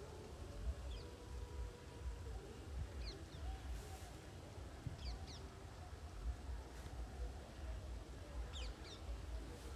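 Birds giving short, high chirps in little clusters every couple of seconds, over a steady low rumble.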